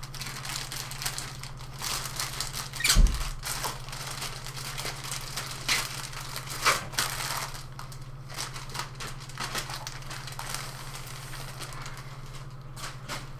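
Plastic packaging crinkling and rustling as a new keyboard is unwrapped by hand, in irregular crackles, with one louder knock about three seconds in.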